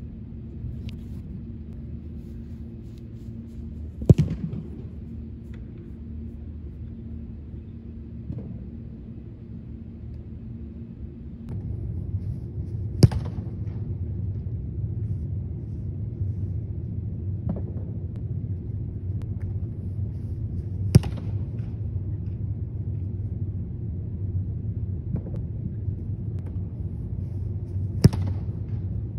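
A football kicked four times, several seconds apart. Each foot strike is a sharp thud with a short echo off a large indoor practice hall. A steady low rumble runs underneath.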